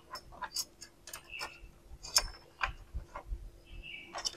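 Light, irregular clicks and taps of a smart door lock's outer handle and metal faceplate being positioned by hand against a wooden door.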